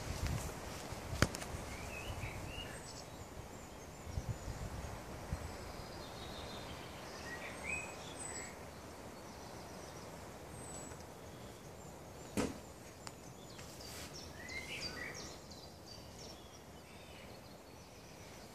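Faint outdoor ambience with small birds chirping now and then. There is a light click about a second in and one sharp knock a little past twelve seconds.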